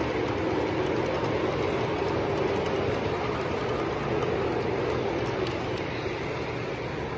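Lionel O-gauge model freight cars rolling past on metal track: a steady rumble of metal wheels with light rapid clicks, easing slightly as the caboose goes by near the end.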